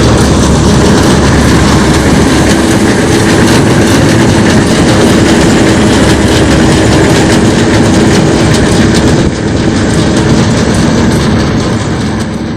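John Deere combine harvester running close by: a loud, steady mechanical drone with a constant hum. It drops a little about nine seconds in, then slowly fades toward the end.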